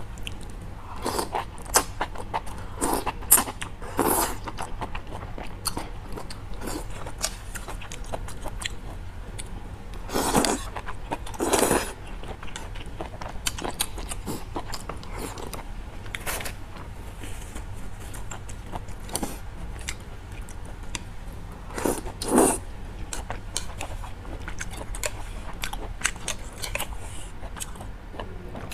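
Close-miked eating sounds: chewing and slurping of noodles and fish balls from a bowl of spicy malatang, with a handful of louder slurps spread through.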